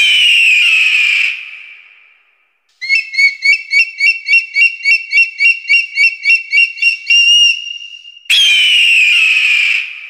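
Bird of prey calling: a long, slightly falling scream, then a rapid series of piping notes, about four a second, ending in a held note, then another long falling scream.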